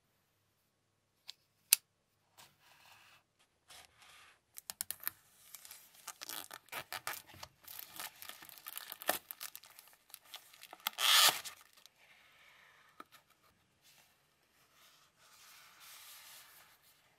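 Clear plastic shrink wrap being torn and peeled off a cardboard box, crackling in quick irregular bursts, with the loudest tear about eleven seconds in. Two sharp taps come just before the tearing starts, and softer rubbing of cardboard follows near the end as the box is opened.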